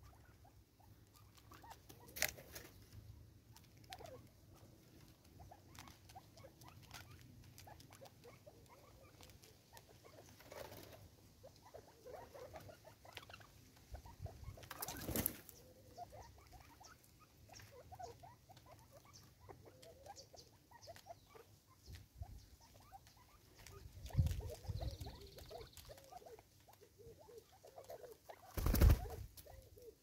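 Natal spurfowl pecking seed from a feeder on a wooden log: a steady patter of small beak taps, with a few louder knocks.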